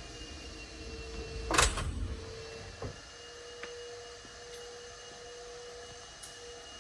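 Power sliding side door of a Volkswagen Caravelle running shut on its motor, ending in a single thud about one and a half seconds in and a lighter click a second later. A faint steady hum runs throughout.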